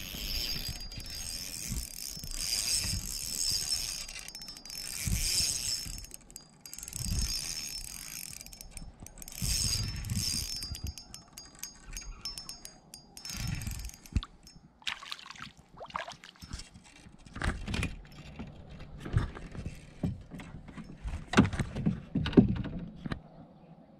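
Fishing reel wound in several short bursts of whirring clicks, followed by scattered knocks and clicks of gear being handled on the kayak.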